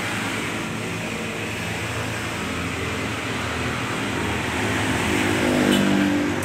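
Stick (arc) welding on a motorcycle exhaust pipe: a steady crackling hiss from the arc as a leak in the rusty pipe is patched. A low hum swells near the end.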